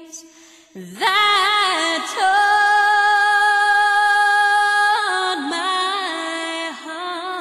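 A solo woman's voice singing a slow melody unaccompanied, with vibrato. It comes in about a second in and holds one long note through the middle.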